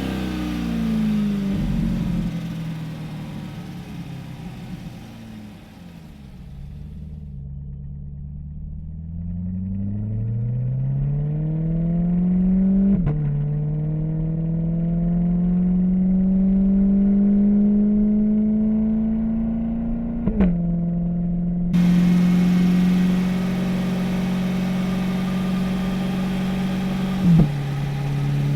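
The 6.2-litre V8 of a 2021 Chevrolet Corvette C8 Stingray, breathing through Flowmaster cat-back exhausts, winds down in pitch, then pulls up through the gears. Its note climbs and breaks with a quick upshift about a third of the way in, again about two-thirds in, and once more near the end.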